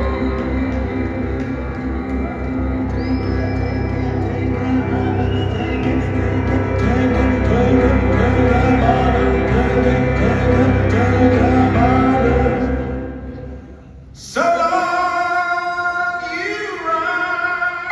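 Live band music, piano and a male voice singing, heard from high in a reverberant arena. The music fades out about thirteen seconds in, and about a second later a new passage of bright ringing tones comes in suddenly.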